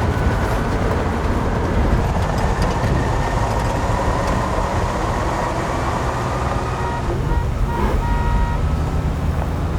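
Heavy vehicle running: a deep, steady engine rumble under tyre and ground noise, with scattered rattles and knocks from its metal body.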